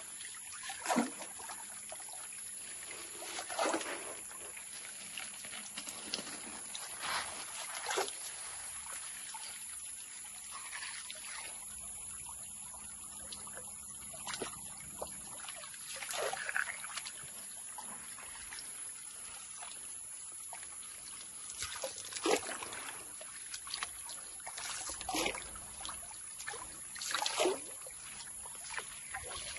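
Water sloshing and trickling as a gold pan is swirled and dipped in a shallow muddy stream, washing gravel, with a sharper splash every few seconds.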